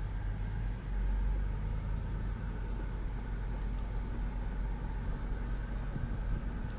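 Mitsubishi Montero Sport V6 engine running steadily, heard from inside the cabin as a low rumble, while the steering wheel is turned to circulate freshly changed power steering fluid.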